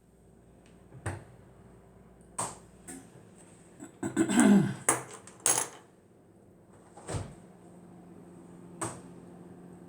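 Scattered knocks and clatters of objects being handled and set down, several spaced about a second apart. Around four seconds in comes a louder cluster, including a short sound that falls in pitch.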